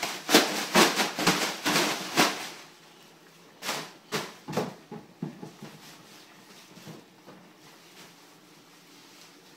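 Plastic bin bag being shaken and flapped open in a quick run of rustling bursts over the first couple of seconds, then a few more rustles as it is pushed into a plastic bin.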